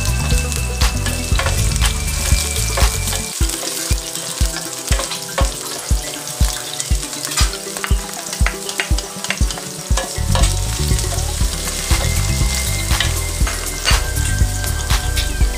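Onion sizzling as it sautés in hot oil in a stainless steel pan, with a spoon stirring and clicking against the pan. Minced garlic goes into the oil about halfway through and sizzles with the onion.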